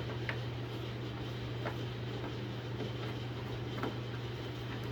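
A few light, scattered metal clicks of a Phillips screwdriver and small screws as the sander's guard is unscrewed, over a steady low hum.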